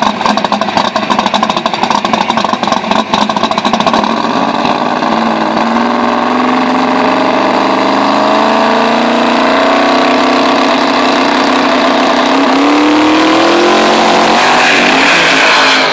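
Twin-turbo V8 of a drag-racing Mustang at the start line: a rough, choppy idle for about four seconds, then the revs held up and climbing slowly and steadily as it builds boost, jumping higher as the car launches shortly before the end.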